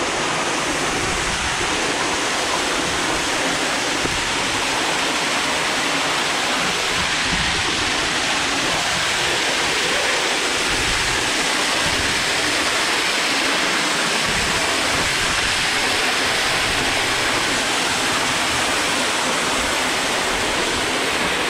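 Waterfall pouring down the canyon rock face within arm's reach: a loud, steady rush of falling water.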